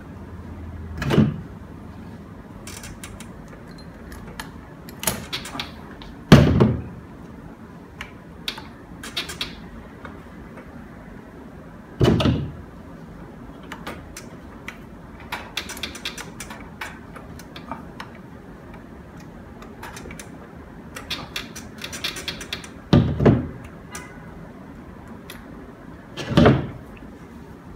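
Hands working on a PC water-cooling loop's fittings with a tool: five heavy thumps at irregular intervals, with light clicks and metallic rattles between them.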